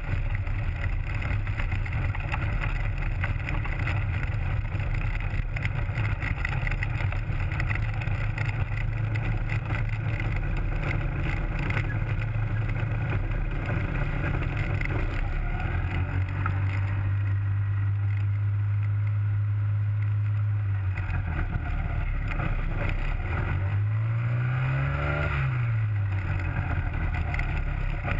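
Rotax 503 two-stroke twin of a Hy-Tek Hurricane 103 ultralight, driving a three-blade composite propeller, running at low power as the aircraft taxis on the ground. The engine note is steady for most of the time, and near the end the revs rise and then fall back once.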